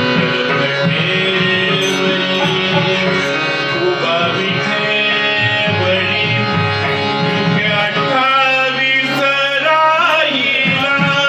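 Harmonium playing the melody of a Marathi abhang, with a hand drum keeping the beat. A singer's voice rises over it near the end.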